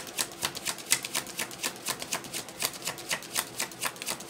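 A deck of cards being shuffled by hand, the cards slapping against each other in a quick, regular patter of clicks, about five or six a second.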